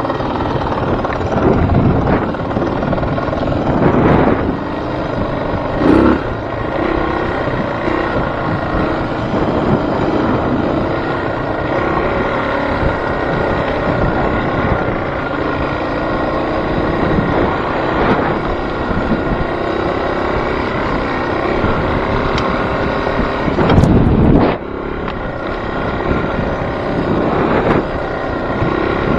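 A vehicle running steadily, with wind buffeting the microphone. There are a few short loud knocks, the loudest about three-quarters of the way in.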